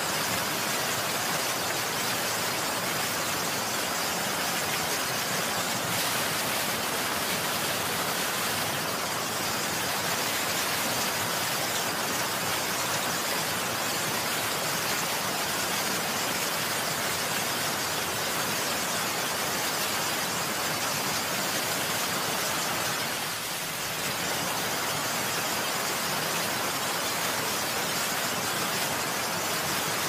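Heavy rain falling steadily, a dense, even hiss of countless drops.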